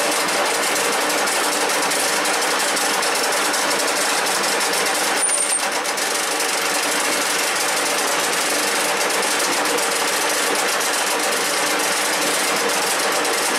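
1K62 screw-cutting lathe running steadily with its chuck spinning, while a hand-held tap in a tap wrench cuts the thread of a hex nut held in the chuck. A brief faint high squeak comes about five seconds in.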